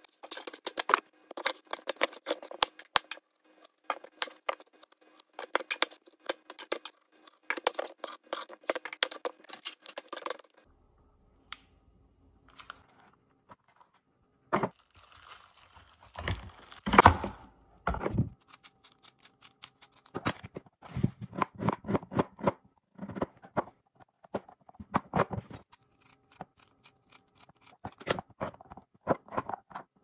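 A hand peeler scraping the skin off an apple in fast scratchy strokes for about ten seconds. After a short pause comes a louder crunching, rustling stretch, the loudest part. Then a santoku knife chops a long green onion and carrot on a cutting board in a quick run of taps.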